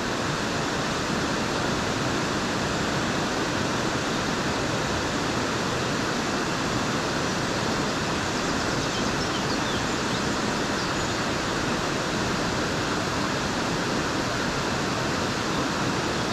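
A river rushing steadily, running high and strong after days of rain.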